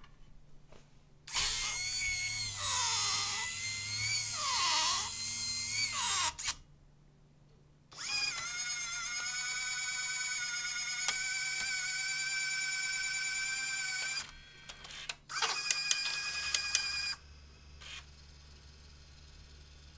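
Libra 8 DDS3 tape changer's loader motors whining as it loads a DDS3 tape into the drive, in three runs. The first run dips and rises in pitch twice, the second is a steady whine of about six seconds, and the third is short with a few clicks, leaving a faint low hum.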